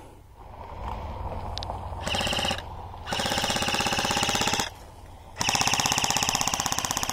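Airsoft guns firing in rapid automatic bursts, a fast even rattle of shots. There are three bursts: a short one about two seconds in, a longer one about a second later, and the longest starting near the end.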